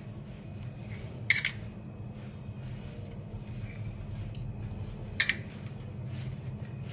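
Two short, sharp clicks about four seconds apart as steamed cakes in paper cups are set down on a wire cooling rack, over a steady low hum.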